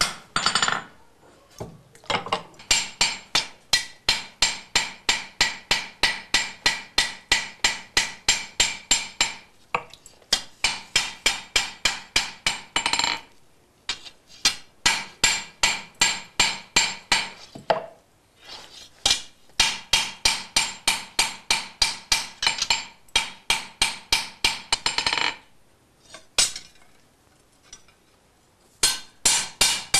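Hand hammer striking a steel katana blade on an anvil in quick runs of about four ringing blows a second, with short pauses between the runs. This is the swordsmith forging the blade's shape and curvature by hand (hizukuri).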